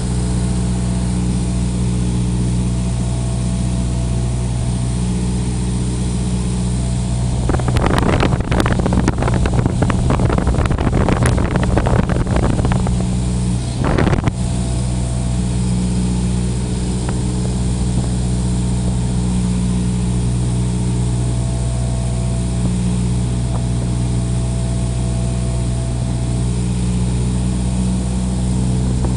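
Cessna 172's piston engine droning steadily at a constant pitch. About a third of the way in, a loud crackling noise breaks in for roughly five seconds, with one more short crackle a second later.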